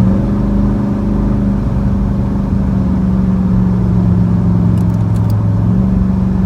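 A 1991 Camaro Z28's V8 engine running at a steady speed, a continuous low drone. Its note steps up right at the start and then holds steady.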